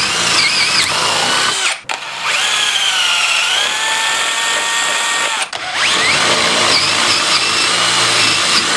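Cordless drill with a twist bit boring through plywood in three runs, with brief stops about two seconds in and again about five and a half seconds in. The motor's whine dips and rises as the bit bites into the wood.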